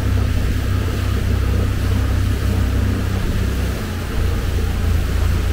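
Balt 818 Titanium motorboat under way across calm sea: a steady low rumble that dips briefly a little under four seconds in, over an even hiss of rushing air and water.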